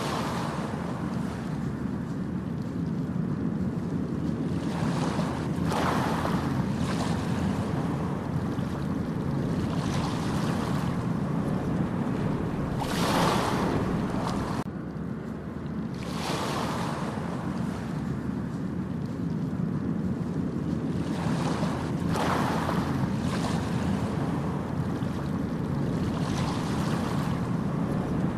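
Ocean waves breaking on a beach: a steady low surf rumble with a hissing wash of breaking surf every few seconds.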